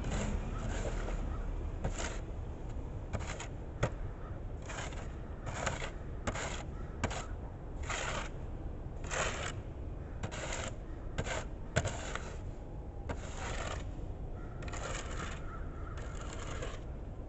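Snow shovel scraping along a concrete sidewalk in a series of short, irregular strokes. A car passes on the snowy road at the start, adding a low rumble.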